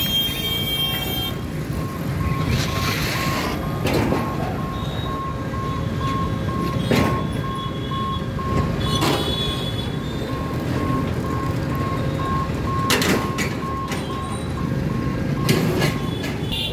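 Railway level-crossing warning beeper sounding a steady, high-pitched repeating beep as the boom barriers lower, over the running of waiting scooters and trucks, with a few short vehicle horn toots.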